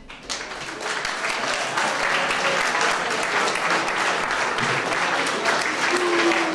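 Audience applauding steadily after a blues song ends, starting just as the band's last note dies away.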